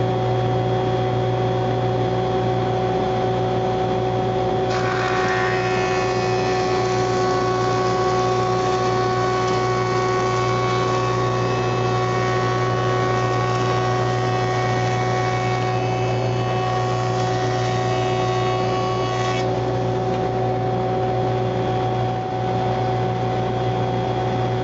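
A JET jointer running with a steady motor hum. About five seconds in, its cutterhead starts cutting along the edge of a board fed on edge against the fence, adding a higher, dense whirring cut. This lasts about fifteen seconds until the board clears the cutter, and then the machine runs on alone.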